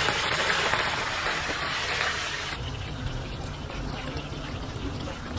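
Hot oil bubbling and sizzling hard in a wok as minced garlic fries in it. The sizzle cuts off suddenly about two and a half seconds in, leaving a quieter steady rumble.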